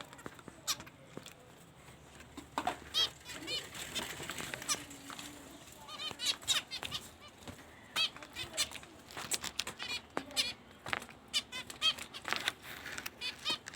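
Small birds chirping in many short, repeated calls as they feed, with scattered sharp clicks and flutters.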